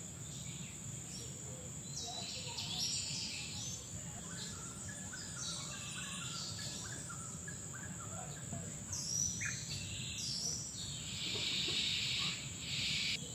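Birds calling and insects chirping, over a steady high-pitched insect drone.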